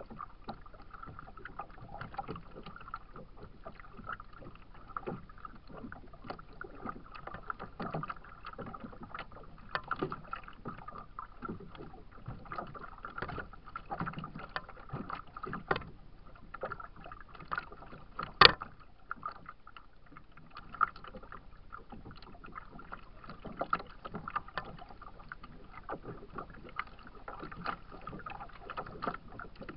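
Small choppy waves lapping and slapping against a plastic kayak hull in irregular splashes and knocks over a steady faint hum, with one sharp knock about two-thirds of the way through.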